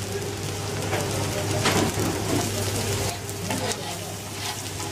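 Fish fillets sizzling in oil on a hot flat griddle: a steady crackling hiss, with a low steady hum beneath.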